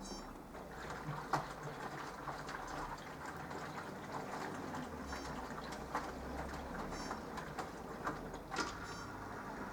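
Minicolo mini washing machine running a wash cycle: water sloshing and splashing in the turning drum, with a few sharp clicks and a short high beep near the end.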